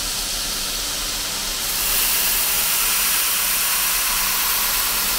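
Belt grinder running with a 220-grit belt, grinding the plunge line on a hardened steel knife blade held in a clamp jig: a steady grinding hiss that grows louder and higher about two seconds in as the blade is pushed harder into the belt.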